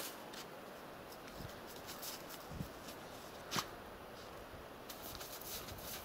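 Faint rustling and a few small clicks, with one sharper click about three and a half seconds in.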